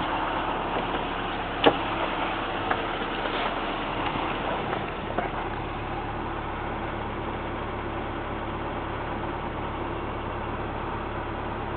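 Toyota Tercel engine idling steadily at about 1000 rpm. A single sharp knock comes a couple of seconds in, followed by a few lighter clicks. After that the idle is heard from inside the cabin as a steadier low hum.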